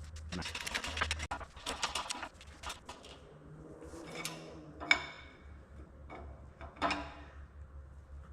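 Metal parts and hand tools being handled during CV joint reassembly: scattered clinks and scrapes, with one sharp metallic click about five seconds in, over a steady low hum.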